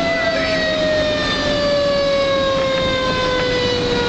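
Fire engine siren wailing, its pitch falling slowly and smoothly throughout, over the rumble of the truck's engine and road noise.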